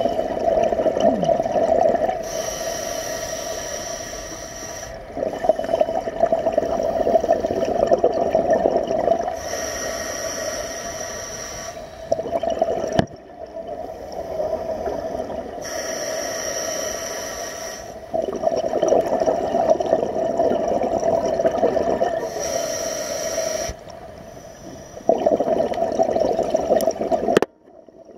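A diver breathing underwater through a regulator, heard close up: a gurgling rush of exhaled bubbles alternates with the hiss of each inhalation, a full breath about every six to seven seconds.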